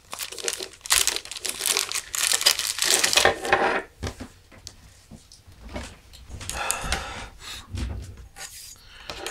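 A clear plastic zip-lock bag crinkling and rustling as a ferrocerium rod fire-starter is pulled out of it, for about the first four seconds. After that the handling is quieter, with a few brief rustles.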